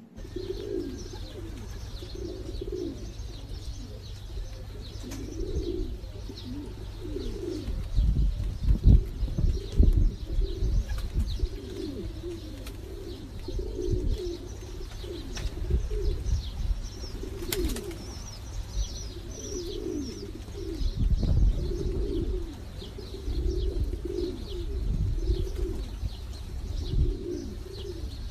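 Several pigeons cooing over and over, their calls overlapping, with faint high chirping from small birds behind them. A low rumble runs underneath and swells a few times.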